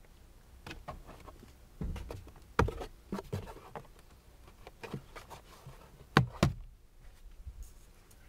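Knocks and clicks of the hard plastic glovebox of a Mk1 Ford Focus being handled and swung fully down, a run of separate knocks with the sharpest a pair about six seconds in.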